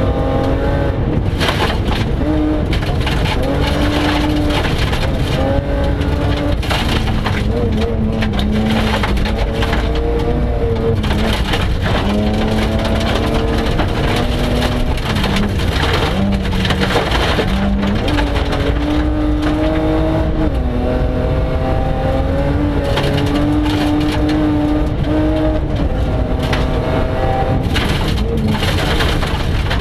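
BMW 325 Group H rally car's engine heard from inside the cabin, revving up through the gears and dropping back again and again, over the rumble and crunch of tyres and stones on gravel.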